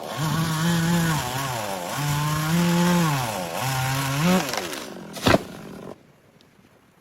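Two-stroke chainsaw running at high revs, its pitch rising and falling three times as the throttle surges, then dying away, with a single sharp crack about five seconds in; the sound cuts off abruptly at about six seconds.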